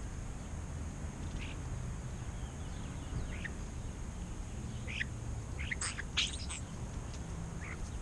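European starlings giving scattered short, high chirping calls, with a quick cluster of them about six seconds in, over a steady low background rumble.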